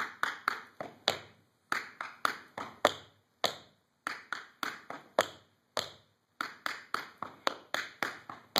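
Tap shoes striking a wooden floor in a tap-dance combination: sharp, ringing taps in quick groups of several, with brief gaps between the groups.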